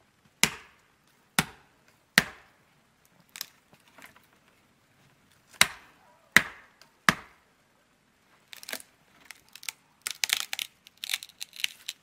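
Axe chopping into a small tree trunk: seven sharp strikes, then a rapid run of wood cracking and snapping near the end as the tree is bent and broken.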